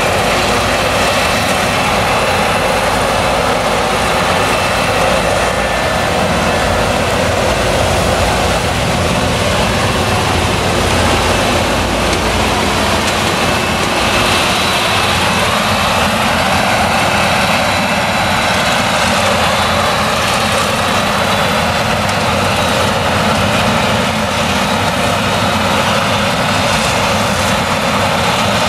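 Claas Jaguar 970 forage harvester with its MAN V8 engine running steadily under load while chopping maize and blowing silage into a trailer, a loud continuous drone of engine, chopper and crop flow with a faint high whine over it. A tractor's engine runs alongside as it pulls the trailer.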